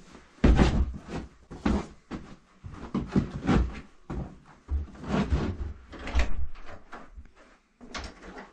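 Handling noise from a cut-off piece of carpet and pad being lifted, shaken and carried: irregular thumps and rustling, about one every second or so. A door is opened near the end.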